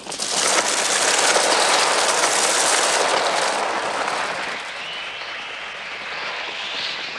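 Film soundtrack of a large flock of crows taking off and swarming: a dense rush of wings and massed bird cries, the film's electronically made bird sounds. It is loudest for the first few seconds, then eases to a lower, steady rushing.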